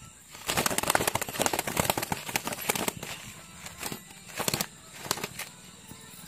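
A freshly slaughtered chicken struggling in its death throes under a man's hands, its wings and feathers scuffing and rustling against a woven plastic sack. There is a dense run of rustling and crackling from about half a second in until about three seconds, then two shorter bursts near the end.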